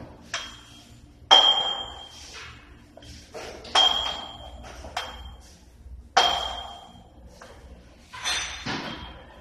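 Cast-iron dumbbell plates clanking against each other: about six sharp metallic clinks, each ringing briefly, a second or two apart.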